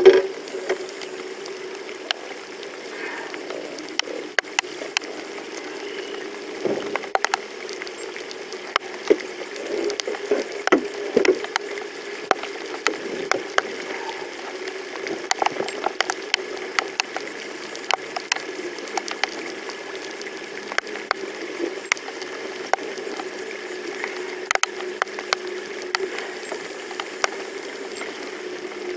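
Irregular sharp ticks and taps, bunched several a second at times, over a steady low hum.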